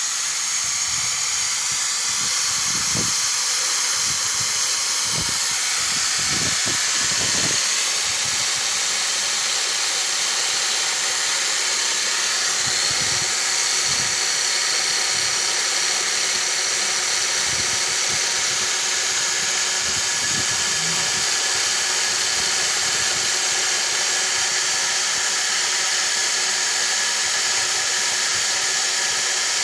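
Electric hand drill mounted in a homemade drill press running steadily at a set speed, a constant whining hiss. A few faint low knocks come about three to seven seconds in.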